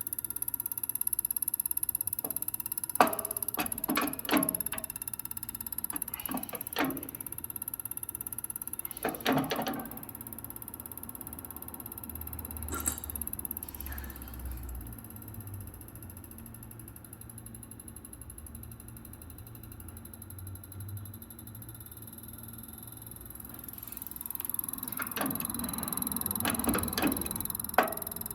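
Common-rail injector test bench running a spray test on a Denso diesel injector: a steady machine hum that swells in the middle, with scattered sharp clicks and knocks of metal parts. The injector gives no spray and no return, which the technician takes as a blocked injector.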